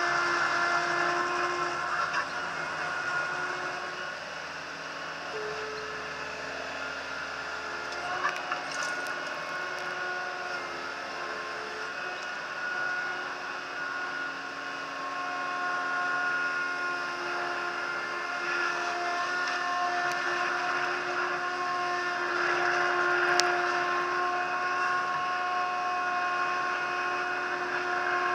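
TCM 706 skid steer loader engine running steadily as the machine drives along a narrow side path, its note shifting slightly now and then, with a brief knock about eight seconds in and a sharp click about twenty-three seconds in.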